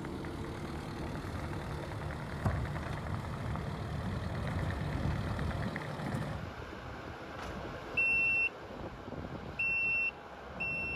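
A heavy vehicle's engine running for the first half, then a reversing alarm sounding three high beeps about a second and a half apart near the end.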